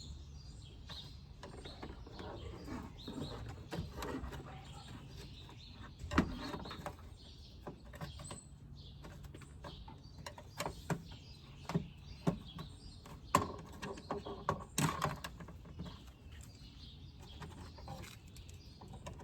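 Scattered sharp clicks and knocks of plastic retaining clips being pried out of a 2008–2012 Honda Accord's front bumper trim with a knife, one about six seconds in and a cluster between twelve and fifteen seconds in. Birds chirp in the background.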